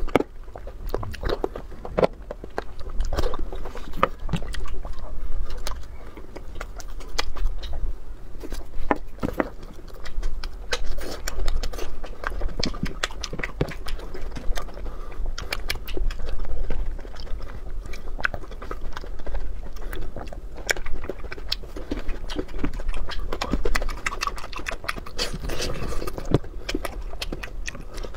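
A person eating: a steady run of irregular bites, chewing and wet mouth noises as soft foods are bitten and chewed.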